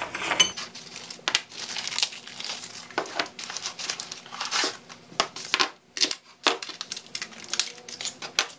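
Paper and cardboard packaging crinkling and tearing as engine main bearing shells are unpacked by hand, with scattered sharp clicks.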